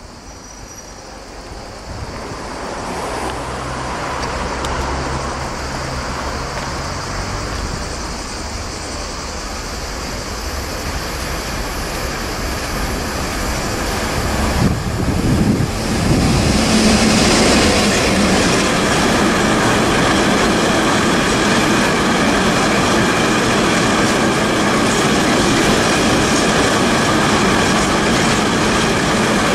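Class 77 diesel-electric freight locomotive approaching, its engine note growing louder, and passing at speed about halfway through. It is followed by the steady rumble and clatter of an intermodal train's container wagons rolling by.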